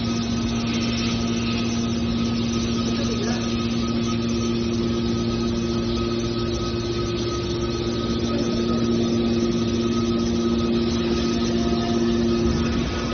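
Steady hum of a hydraulic metal wire baler's motor and pump running, with unchanging tones throughout.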